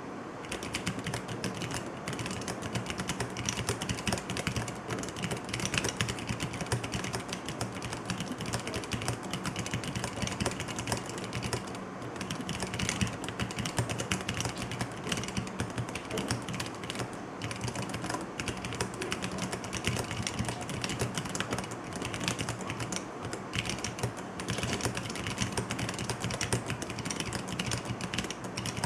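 Fast, continuous typing on a 36-key split mechanical keyboard built as bare switches on a PCB with no case: a dense stream of key clicks with only brief pauses.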